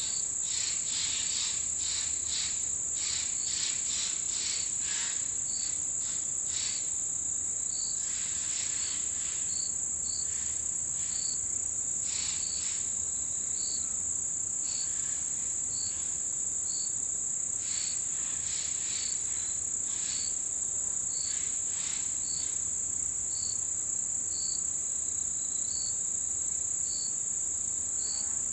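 Autumn insects chorusing: one keeps up an unbroken high-pitched trill while another chirps in short, evenly spaced notes, about one and a half a second, with bursts of quick scratchy notes now and then.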